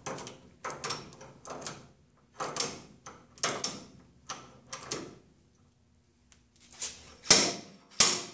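Slide hammer pulling the original axle bearing out of a GM 10-bolt 8.5-inch rear axle tube: the weight is run along the shaft and knocked against its stop again and again, about two strokes a second. After a short pause near the end, the blows come harder and sharper.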